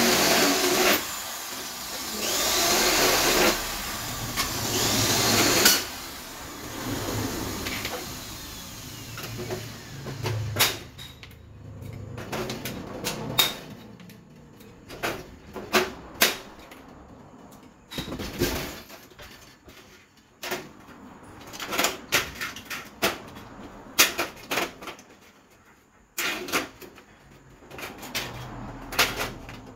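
A power drill run in short bursts through the first six seconds or so, fixing the aluminium cabinet floor. After that, scattered clicks and knocks of aluminium floor slats being handled and laid into the frame.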